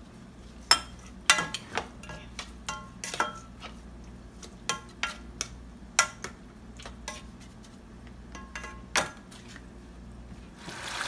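A spoon stirring chopped conch in a nonstick saucepan, knocking and clinking irregularly against the pot, some knocks ringing briefly. Near the end a steady hiss comes in.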